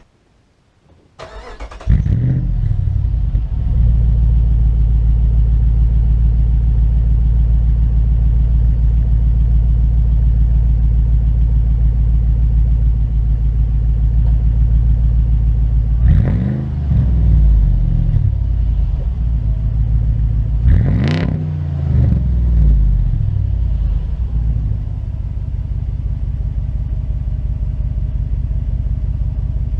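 2005 Jeep Grand Cherokee's 5.7 Hemi V8 cold-starting through a Magnaflow 4-inch round straight-through muffler: a brief crank, it catches about two seconds in and settles into a steady fast idle. Two quick revs past the middle, then the idle drops a little lower near the end.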